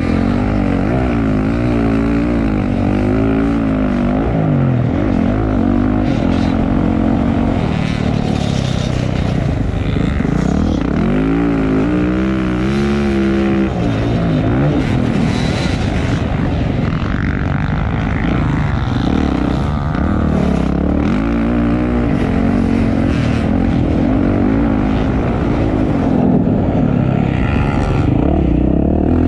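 Motocross dirt bikes racing, their engines revving up and falling back over and over as they accelerate, shift and ease off, with more than one bike heard at once.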